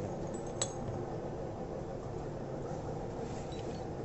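Steady low background rumble with one light metallic click about half a second in, as gearbox parts are handled.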